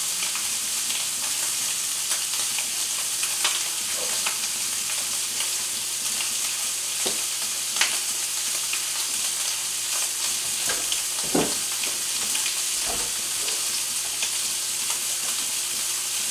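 Beef short ribs searing in butter in a hot cast-iron skillet, a steady sizzle, with a few brief knocks and clicks, the sharpest about eight seconds in and a duller one about eleven seconds in.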